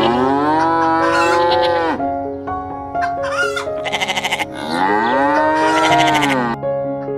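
Sheep bleating over background music: two long drawn-out bleats that rise and fall in pitch, with a shorter quavering bleat between them about four seconds in.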